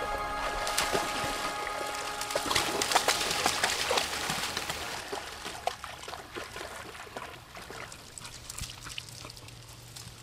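Rain pattering in many small drops, slowly fading out. A piece of music with held tones ends about two and a half seconds in.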